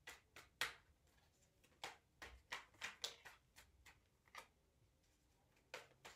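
Deck of tarot cards being shuffled hand over hand: faint, irregular soft clicks and flicks of cards, with a pause of about a second near the end.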